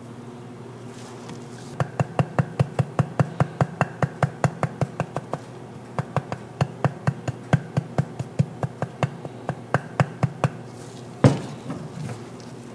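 Rapid, regular tapping of a kitchen utensil against cookware, about five sharp strikes a second, in two runs with a short break between them. One louder single knock follows near the end.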